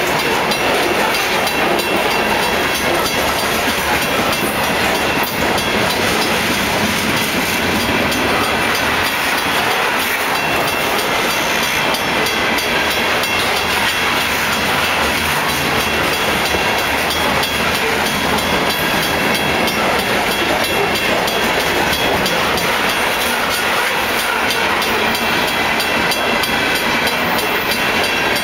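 Covered hopper cars of a freight train rolling past at steady speed: a continuous rumbling rush of wheels on rail with a stream of clicks and clacks as the wheels cross the joints.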